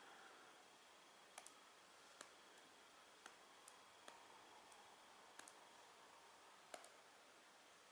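Near silence with faint, irregular clicks, about ten scattered through it.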